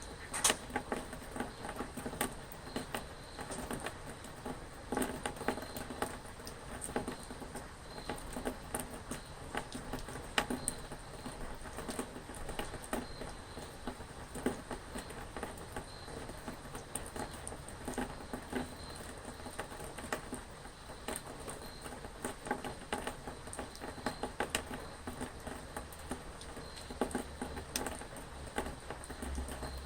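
Rain pattering, a steady hiss with many irregular drops ticking sharply.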